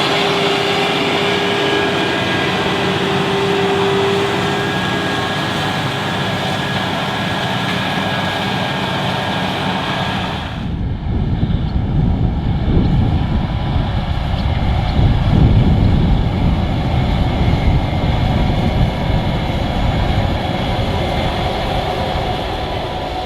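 Large high-horsepower farm tractor's diesel engine working: a steady drone with a held high whine. About ten seconds in, the sound cuts to a deeper, rougher tractor engine rumble that grows a little louder.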